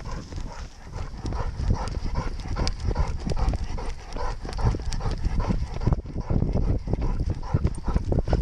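A Weimaraner running, its paws thudding in a steady rhythm, heard through a camera carried on the dog, over a steady hiss.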